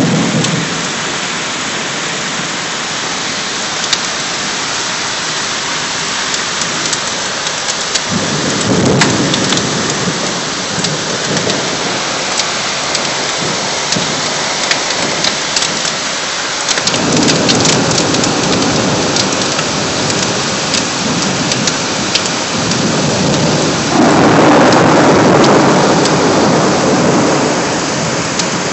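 Heavy rain pouring steadily, swelling in three louder low rushes, the loudest about 24 seconds in.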